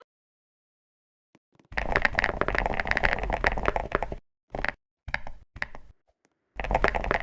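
Close-up crackling and crunching from a chocolate bar, in bursts: a long burst about two seconds in, two or three short ones around five seconds, and another starting near the end.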